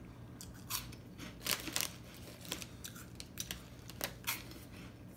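White cheddar popcorn puffs crunching as they are chewed, with the plastic snack bag crinkling, heard as a dozen or so short, sharp crackles at uneven intervals, loudest about a second and a half in and again around four seconds in.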